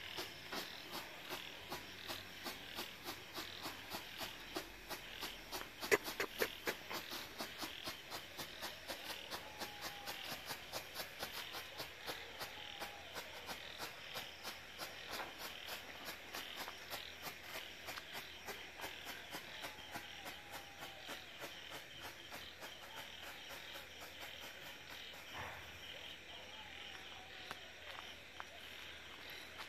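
A cricket chirping in a steady, even rhythm of about three to four pulses a second. A few sharper, louder pops come about six seconds in.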